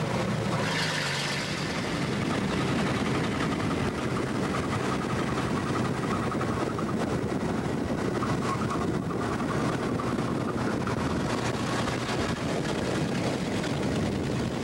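1931 American LaFrance fire engine running steadily while driving along a road, its engine mixed with wind and road noise, as heard from aboard the open-cockpit truck.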